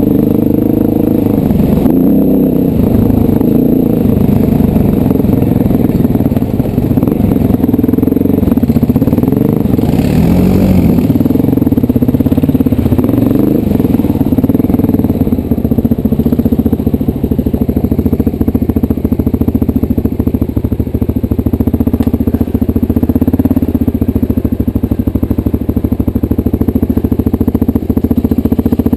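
Off-road vehicle engine running hard on a rough trail, its pitch rising and falling with the throttle, with rattling from the bumpy ride.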